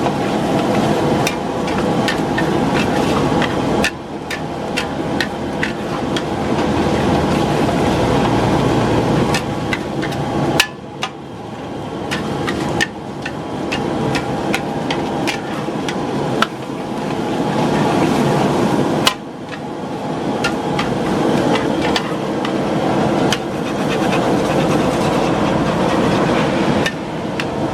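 A metal spatula clattering rapidly and unevenly against an iron wok while stir-frying mie balap noodles, over a steady loud rushing noise from the stove and the frying.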